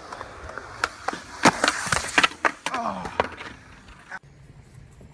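Skateboard wheels rolling on concrete, then a string of sharp clacks and knocks between about one and two and a half seconds in as board and rider crash to the ground. A man's voice cries out just after, falling in pitch.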